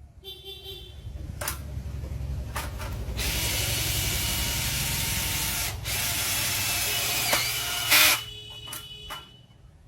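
DeWalt 26V cordless hammer drill driving a screw, its hammer action engaged. The motor builds up over the first couple of seconds, runs steadily with a fast pulsing beat, then stops with a sharp click about eight seconds in.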